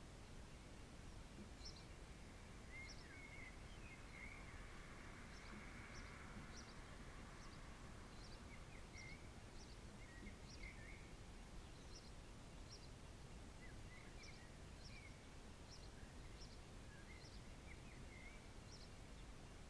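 Faint outdoor ambience: small birds calling in the distance, short high chirps repeated on and off with a few brief whistled notes, over a low steady background hum. A faint swell of noise rises and fades between about four and eight seconds in.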